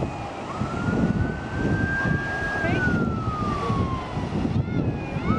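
Emergency-vehicle siren wailing: one tone rises slowly for about two seconds, falls for about a second and a half, and starts to rise again near the end. Underneath runs a steady low rumble of wind on the microphone.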